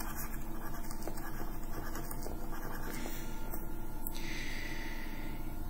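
Steady low background hum with faint light taps and scratches of a stylus writing on a tablet. A soft hiss comes in about four seconds in and lasts about a second and a half.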